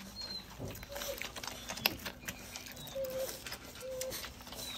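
German shorthaired pointer puppies nursing from their mother: quick clicking and smacking from the suckling, with a few short squeaks and whimpers.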